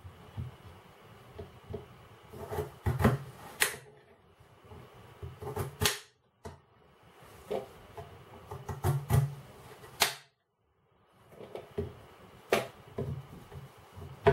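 Kitchen knife chopping a peeled potato on a glass chopping board: irregular sharp clicks as the blade strikes the glass, about half a dozen loud ones among softer taps and handling knocks.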